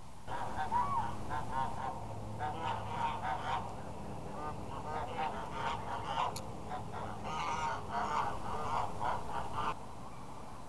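Flock of domestic geese honking, many short overlapping calls. They cut off abruptly near the end, leaving only a steady low background.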